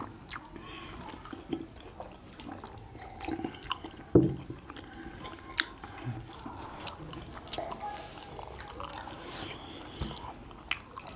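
Close-miked eating: chewing and mouth sounds of people eating momos, with small scattered clicks of chopsticks against steel plates and one louder low thump about four seconds in.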